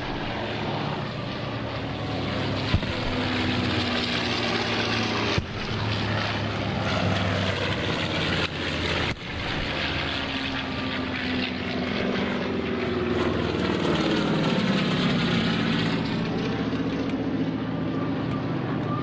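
WWII piston-engined warbirds passing overhead: a steady propeller-engine drone whose pitch slides up and down as the aircraft pass. The sound briefly dips twice around the middle.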